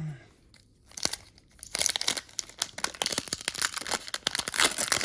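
Packaging crinkling as it is handled: a short thud, a second or so of near quiet, then steady dense crackling from about two seconds in.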